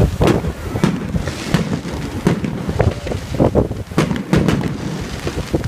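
Aerial fireworks bursting overhead: a rapid, irregular series of bangs and crackles.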